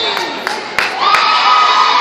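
Volleyball spectators and players shouting and cheering in a gym during a rally, with a couple of sharp hits of the ball before a second in, then a long high-pitched yell.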